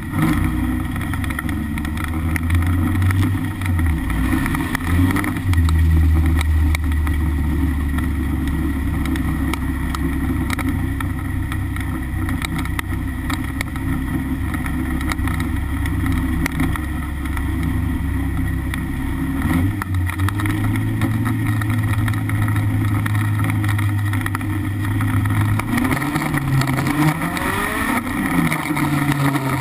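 BMW E36 318iS four-cylinder engine running under load, heard from inside the stripped race car's cabin. The engine note steps up in pitch about two-thirds through and rises again near the end as the revs climb.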